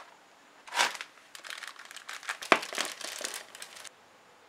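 A small cardboard toy box and its packaging being torn open and handled, crinkling and rustling in a run of short bursts from about a second in until near the end, with one sharp click about halfway through.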